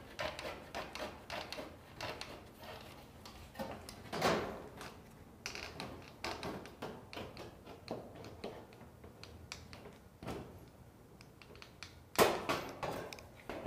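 Hand aviation snips cutting the painted sheet-metal pan of a roof valley flashing: a string of crisp snips, roughly one or two a second at uneven spacing, with the thin metal rattling. A louder clatter comes near the end.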